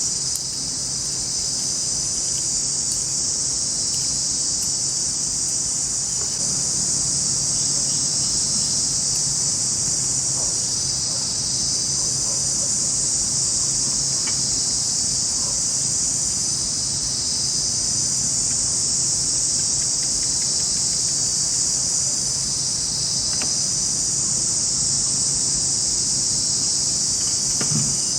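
A dense, steady chorus of forest insects, a continuous shrill buzzing trill, with a faint low hum underneath.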